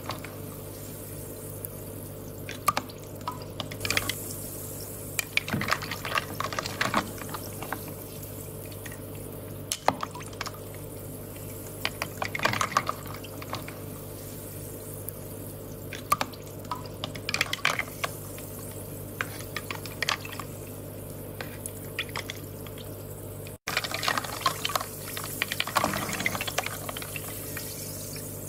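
Water trickling and dripping, with irregular clusters of small splashes and clicks over a steady low hum. It briefly cuts out about two-thirds of the way in.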